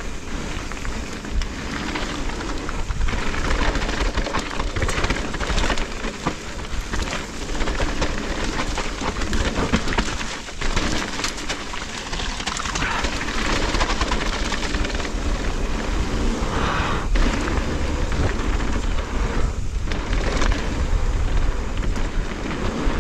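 Mountain bike riding down a rough, rocky trail: tyres crunching and the bike rattling and clattering over the bumps, with a steady low rumble of wind on the action camera's microphone.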